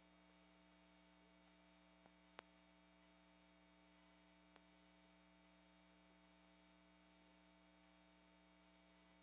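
Near silence: a faint, steady electrical hum on the audio line, with one faint click about two and a half seconds in.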